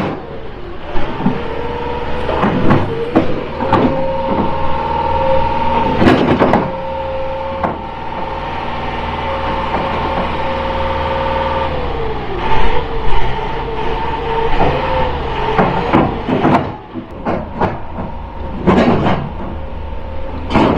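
Tractor engine running under load, banging away. Its note rises a couple of seconds in, holds steady, then drops and wavers about twelve seconds in, with irregular loud bangs and clanks throughout.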